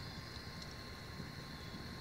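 Wood campfire burning in a steel fire ring: a low rumble of flame with a few faint crackles in the first second, over a steady high-pitched drone.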